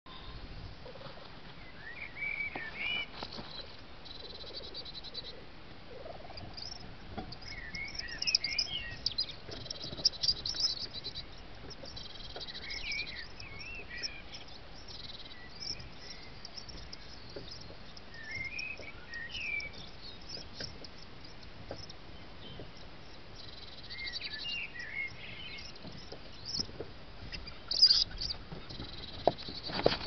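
Wild songbirds singing: a short warbling phrase repeated every five or six seconds, with higher trilling calls between. A few sharp clicks near the end.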